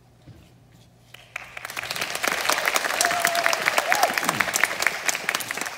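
Audience applauding. The clapping breaks out suddenly about a second and a half in and quickly builds to full, steady applause.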